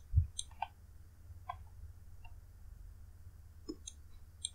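A few faint, scattered computer mouse clicks, with one low thump just after the start, over a low steady hum.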